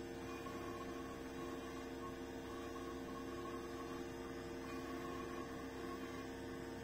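Small electric motor of a rotating display turntable running, a steady hum made of several held tones, with a higher whine that swells and fades about once a second.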